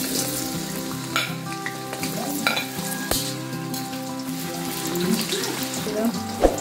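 Potato sticks sizzling in hot cooking oil in a wok just after they are dropped in, with a few sharp clicks of a metal skimmer against the wok as they are stirred.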